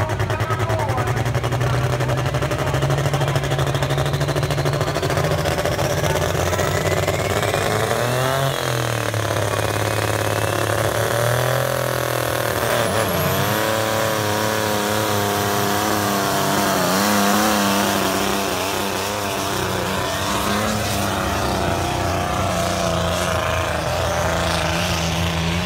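Loud engine of a competition pulling tractor running steadily, then revved up and down several times.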